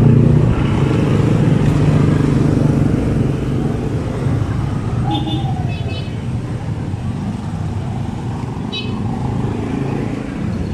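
Street traffic: a nearby motor vehicle's engine running close by, then slowly fading as it moves off. A few short high-pitched chirps come about halfway through and again near the end.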